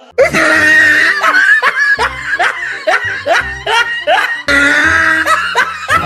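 Music with laughter over it, a quick run of repeated 'ha-ha' strokes, breaking off briefly about four and a half seconds in and starting again.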